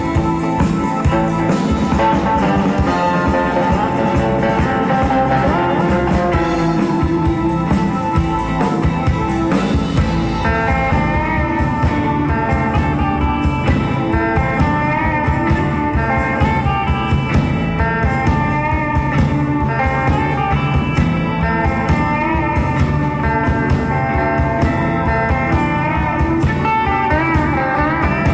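Live instrumental rock band: an electric lead guitar plays the melody over rhythm guitar, bass and a drum kit keeping a steady beat.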